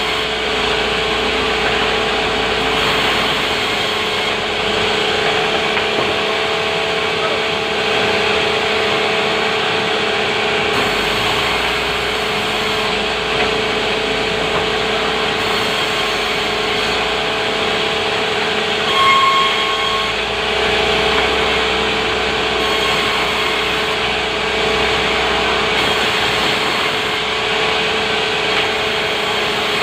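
Sawmill machinery running steadily, a constant hum with a steady whine over noisy sawing as timber is cut into boards. There is a short high squeal about 19 seconds in.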